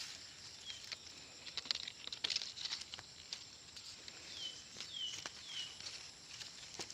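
Short high bird chirps falling slightly in pitch: a faint one near the start, then three in quick succession about four to five seconds in, over light rustling and scattered clicks.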